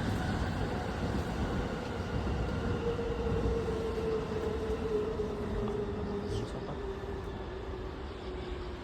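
Container freight train hauled by an EF210 electric locomotive passing: a steady rumble of wheels on rail, with a faint whine that slowly falls in pitch, easing off slightly toward the end.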